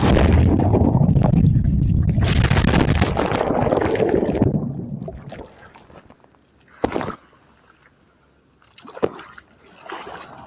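Breaking-wave whitewater churning over and around a camera held in the surf, partly underwater: a loud, muffled rush for about five seconds that fades away, then two short splashes a couple of seconds apart.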